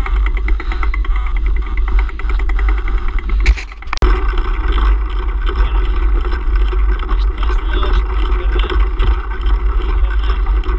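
Wind buffeting a handlebar-mounted action camera's microphone as a mountain bike rides over a rough dirt track: a steady deep rumble mixed with tyre and rattle noise. It cuts out briefly about four seconds in.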